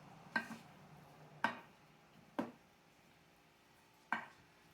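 Four short, sharp knocks spaced about a second apart, from dressing being mixed in its dish, the dish or utensil knocking as it is worked.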